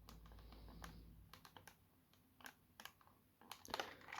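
Faint, scattered plastic clicks and taps from fingers working at the battery cover of a toy RC car's remote control, trying to pull it off; the clicks come thicker near the end.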